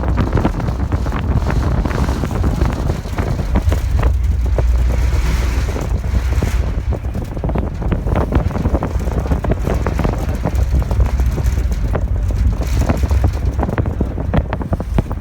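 Wind buffeting the microphone aboard a moving passenger ferry, gusting unevenly over a steady low rumble from the boat.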